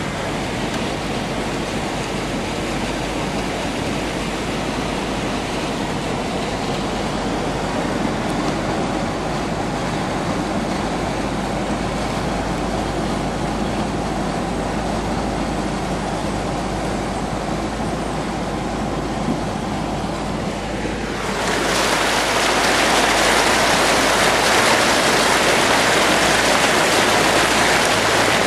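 Floodwater rushing and splashing against the front of a vehicle as it drives through deep water, over a steady low hum. About three quarters of the way in the splashing becomes suddenly louder and hissier.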